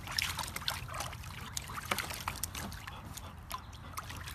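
A puppy's paws splashing in the shallow water of a plastic kiddie pool: many small, irregular splashes and drips.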